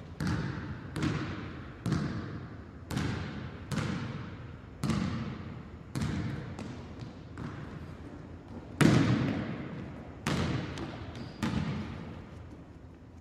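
A basketball being bounced, dribbled about once a second, with an echo ringing after each bounce. There is a longer gap and a few lighter taps before the loudest bounce about nine seconds in; a few more bounces follow, then it dies away.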